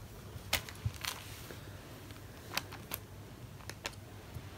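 Several short, light clicks and taps, scattered irregularly, over a faint low steady hum; no meowing.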